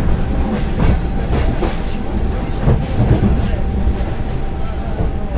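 Passenger train carriage in motion, heard from inside: a steady low rumble with irregular clacks of the wheels over rail joints and a steady hum tone.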